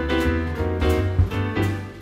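Jazz background music with piano, a strong bass and a steady beat.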